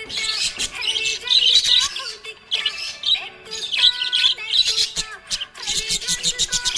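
Budgerigar chirping and warbling in quick bursts, with a run of rapid chirps about five seconds in.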